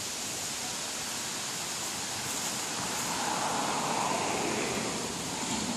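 Steady outdoor hiss with a car on the road, its tyres and engine swelling and then fading a few seconds in.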